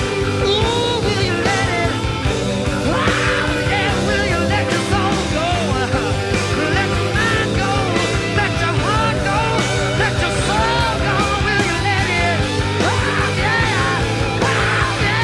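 Rock music with singing and a full band playing steadily.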